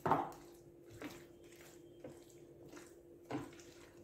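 A spatula stirring cream into thick custard and chopped fruit in a glass dish: a few soft, wet squelching strokes roughly a second apart, the first the loudest.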